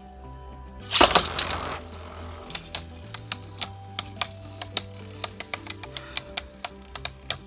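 Two spinning tops launched into a Beyblade stadium with a loud whirring burst about a second in, then clashing in a run of sharp clicks that come faster toward the end. Background music runs underneath.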